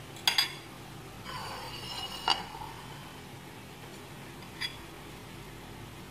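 Metal fork clinking and scraping against ceramic plates as klepon balls are rolled in grated coconut: a quick pair of clinks, a short scrape ending in a ringing clink, and one more clink a couple of seconds later.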